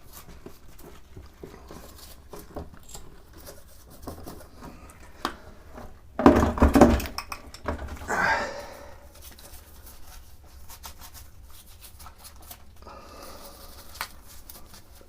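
Cleaning work on a Naumann 65 vintage sewing machine: light scrapes and clicks of handling and scrubbing its metal parts, with a louder rustling burst about six seconds in.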